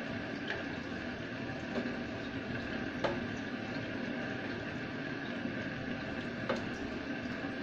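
Ground pork cooking in a stainless saucepan with a steady sizzle while a spatula stirs it, clicking against the pan a few times, most sharply about three seconds in.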